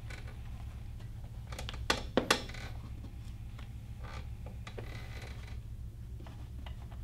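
Handling and rustling of a thin printed sheet peeled off a picture board, with two sharp clicks about two seconds in, over a steady low hum.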